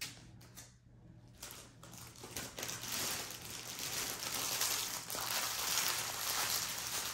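Clear plastic bag of diamond-painting drill packets crinkling as it is picked up and handled: a few soft rustles at first, then louder, continuous crinkling from about two and a half seconds in.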